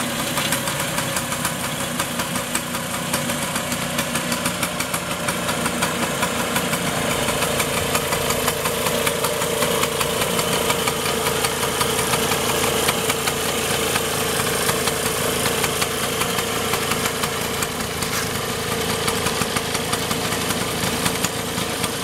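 Freshly rebuilt 1960s Vespa VNB single-cylinder two-stroke engine idling steadily with a rapid, even beat.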